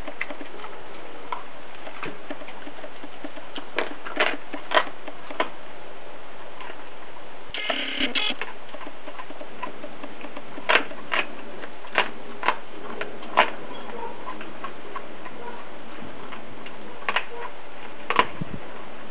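Australian cattle dog chewing a whole raw rooster, its teeth crunching through bone in scattered sharp cracks that come in small clusters, over a steady hiss.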